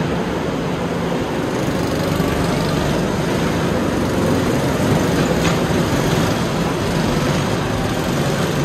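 Several rental go-kart engines running as the karts lap the track, a steady engine drone that grows a little louder near the middle as the pack comes round, echoing in the large hall.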